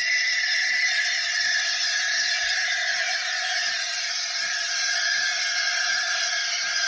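Steam wand of a Casabrews 20-bar espresso machine hissing steadily as it steams and froths half-and-half, with a faint low tick about every 0.7 s underneath.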